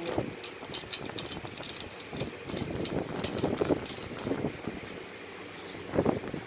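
A puppy licking the steel ball-valve spout of a pet water bottle: a run of irregular quick clicks and rattles as its tongue pushes the ball. There is a single louder knock near the end.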